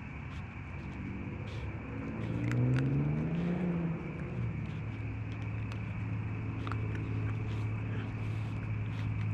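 A motor vehicle's engine running: its pitch rises and falls again about two to four seconds in, then it settles into a steady low hum.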